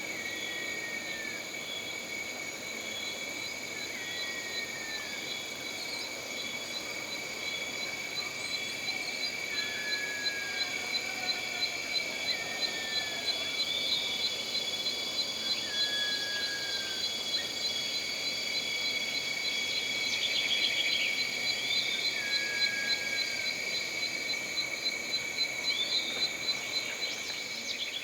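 Jungle ambience: a steady chorus of insects, with a pulsing chirp, about two or three a second, setting in about eight seconds in. Short falling whistled calls recur every couple of seconds.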